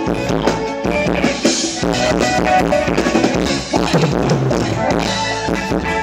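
A live band playing Thai ramwong dance music, driven by a steady drum-kit beat of bass drum, snare and rimshot.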